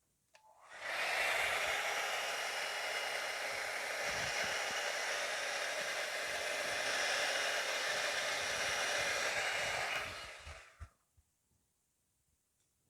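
Hair dryer running steadily for about ten seconds, blowing a puddle of poured acrylic paint outward to open it into a bloom. It switches on about a second in and cuts off near the eleven-second mark.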